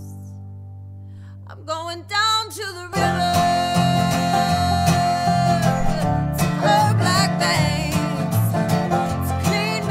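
Live acoustic country/bluegrass band music with banjo, dobro and guitar. A held chord fades over the first second or two, and a short bending melody line follows. About three seconds in, the full band comes back in with busy plucked strings and singing.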